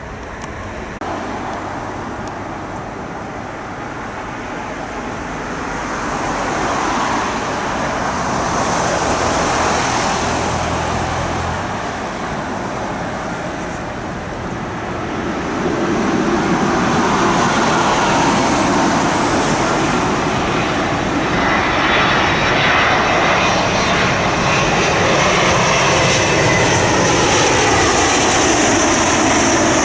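Jet airliner landing, its engine noise growing louder in two swells and holding loud through the second half, with a sweeping, phasing rush as it passes.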